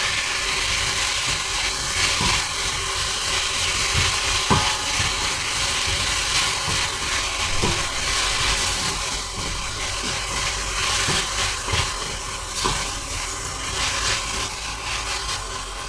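Ground meat and tomato wedges sizzling in a stainless steel pot while being stirred with a spatula. A steady frying hiss runs under scrapes and occasional knocks of the spatula against the pot.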